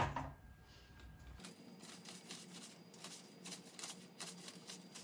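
A plastic bag of powder crinkling and a spoon scraping as powder is scooped out, a faint run of soft rustles and small clicks starting about a second and a half in.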